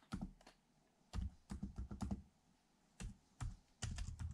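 Computer keyboard keys being typed in short, uneven runs of clicks with brief pauses, as a Wi-Fi passphrase is entered.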